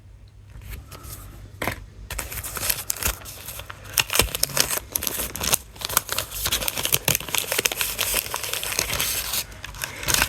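Plastic packaging being handled while an MP3 player is unpacked: crinkling and rustling with many small clicks, starting about two seconds in and easing off near the end.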